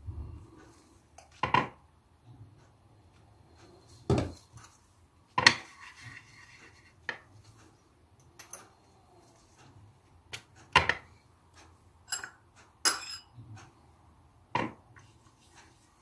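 Metal teaspoon clinking against a small ceramic bowl, with knocks of things set down on a tray: about ten short, sharp clinks and taps at irregular intervals.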